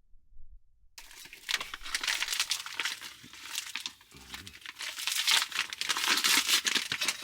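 Near silence, then from about a second in, plastic packaging crinkling and tearing as it is handled and opened, in uneven bursts of crackle.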